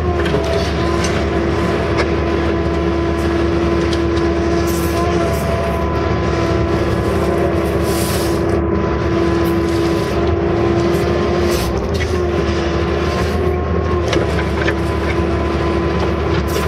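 Case CX160 excavator's diesel engine running steadily under digging load, heard from inside the cab, with a steady whine and scattered short knocks as the bucket works the soil.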